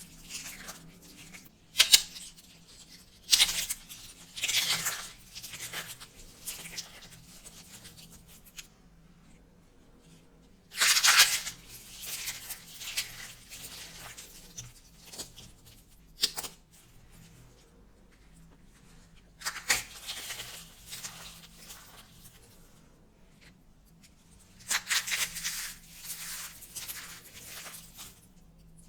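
Dry, starch-coated soap crunching and crackling in irregular bursts, about seven of them, with quiet gaps between.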